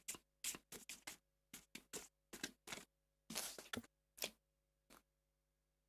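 Tarot cards being handled and laid down: a run of soft, irregular clicks and flicks, with a brief sliding rustle about three and a half seconds in.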